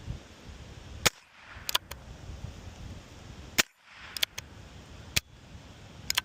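A .22 LR Heritage Rough Rider Rancher revolver carbine firing three sharp shots about two seconds apart. Each shot is followed by a quieter pair of metallic clicks, typical of the single-action hammer being cocked and the cylinder turning.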